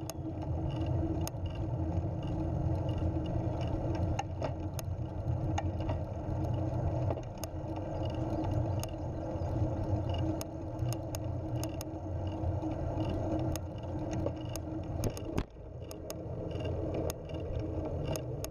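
Recumbent trike rolling along a rough, patched asphalt trail: steady rolling noise with frequent sharp clicks and rattles as it goes over the bumps.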